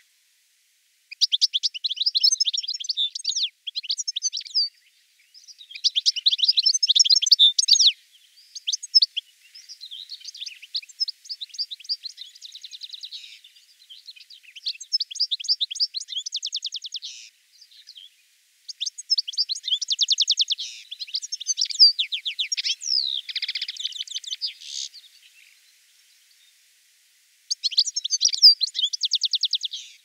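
European goldfinch singing: bouts of rapid, liquid twittering and trills a few seconds long, broken by short pauses, with a longer pause a few seconds before the end.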